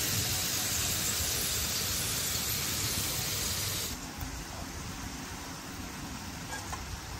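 Potato sticks frying in hot oil in a wide iron pan, a steady sizzle that drops abruptly to a quieter sizzle about four seconds in, with a few light clicks after.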